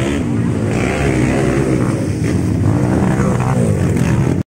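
Motocross dirt bike engines revving, their pitch rising and falling as the riders work the throttle through the mud. The sound cuts off abruptly near the end.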